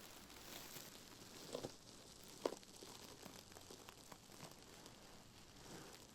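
Faint scratchy rustling of a scouring pad and a powder puff rubbed against the microphone, with scattered small clicks and one sharper scrape about two and a half seconds in.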